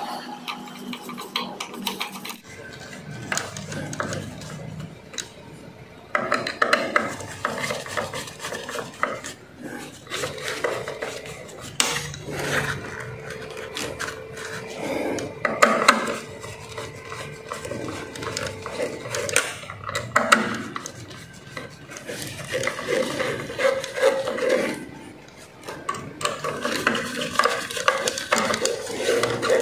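Irregular clicks, scrapes and rubbing from handling wiring: stiff insulated electrical wires being bent by gloved hands and fitted into a submeter's metal screw terminals, with a hand tool clicking against the terminal block.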